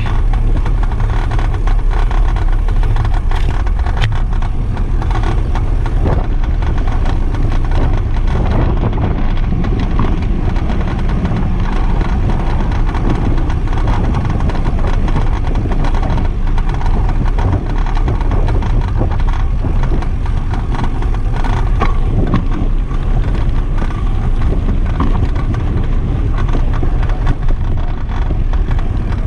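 Steady wind rush and low rumble on the microphone of a camera riding along on a bicycle, with small rattles and knocks as the tyres roll over a brick-paved path.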